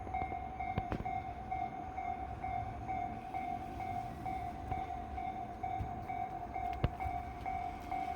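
Japanese railway level crossing's electronic warning bell ringing in a steady repeating pattern, about two strokes a second, over a low rumble, with a sharp click about a second in and another near the end.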